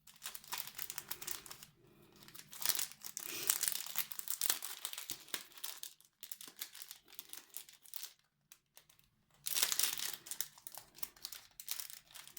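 A bag of craft beads crinkling as it is handled and opened, in two spells of rustling with a quieter pause between.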